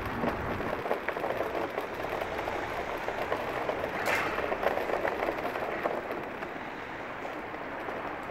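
Hoverboard wheels rolling over a block-paved car park floor: a steady rumble with many small clicks and rattles, louder in the middle, with a sharper clatter about four seconds in.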